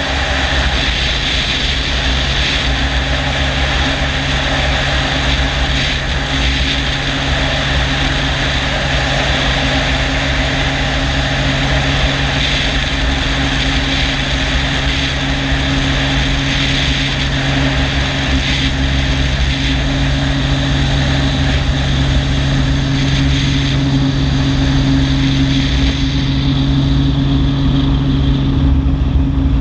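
Helicopter in flight, heard from a camera mounted on its outside: a steady engine and rotor hum with a fast low beat from the blades. Near the end it descends toward a helipad to land.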